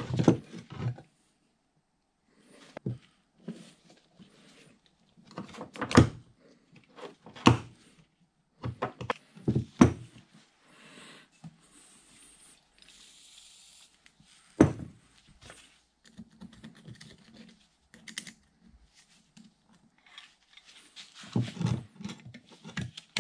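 Irregular knocks, clicks and light rattles of a Bridgeport variable-speed head's adjustment assembly (plastic bearing block, worm shaft and chain) being handled on a wooden workbench and worked with pliers to get it open.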